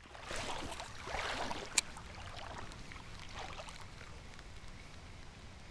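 Creek water splashing and trickling, busiest in the first two seconds, with one sharp click just under two seconds in.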